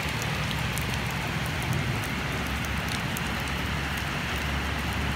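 Steady rain falling, with scattered drops ticking close by.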